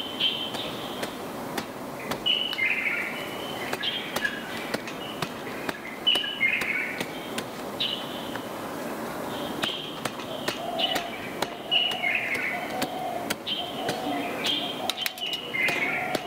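Sharp slaps at irregular intervals, the loudest sounds, from quilts being beaten over balcony rails, over birds repeating a short chirping phrase. From about ten seconds in, a lower repeated bird call joins.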